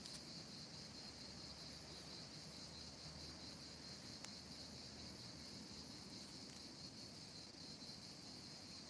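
Faint, steady high-pitched insect chorus, with a single faint click about four seconds in.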